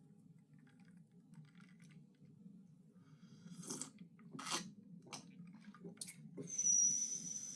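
A spoon or serving utensil clicking and scraping against a plate or food container about five times while food is dished up, then a steady high-pitched hiss starts about two-thirds in.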